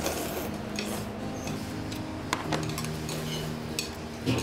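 Scattered clinks and taps of metal chopsticks and spoons against ceramic bowls and steel cups as several people eat noodles at the table, over a steady low hum.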